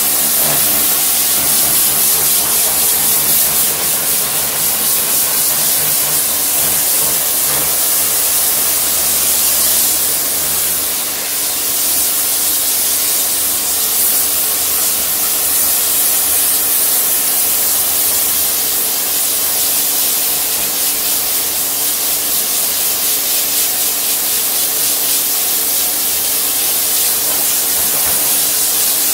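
Kärcher electric pressure washer running steadily, its high-pressure jet hissing loudly as it blasts a patio chair, with the motor and pump humming underneath.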